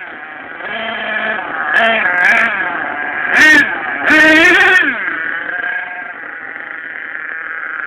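A vehicle's motor revving up and down in several short bursts, the loudest between about three and five seconds in, falling away before settling into steady running.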